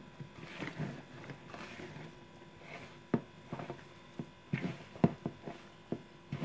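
Hand kneading a soft yeast dough of flour, butter and milk in a plastic bowl: squishing and rubbing at first, then a string of dull knocks from about three seconds in as the dough is pressed into the bowl.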